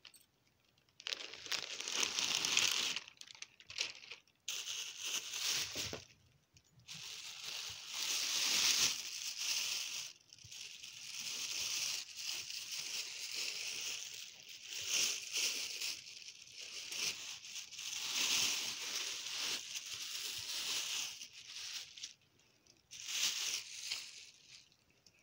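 Plastic mailing bags crinkling and rustling in bouts with short pauses as they are opened and a plush toy is pulled out.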